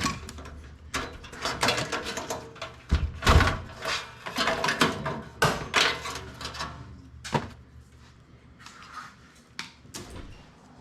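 Irregular clanks, knocks and clicks of a desktop computer being taken apart by hand, as metal and plastic parts are pried and pulled out. The loudest thumps come about three seconds in, and it goes quieter near the end.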